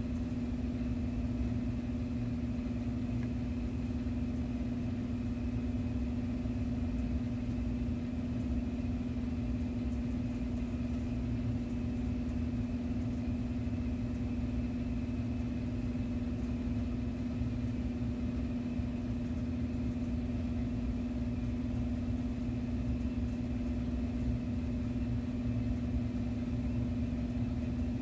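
Steady machine hum with one strong low tone and a faint low rumble, unchanging throughout.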